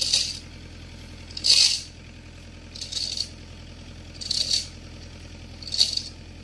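Mini excavator's diesel engine running steadily at idle, with short rattling bursts about every second or so.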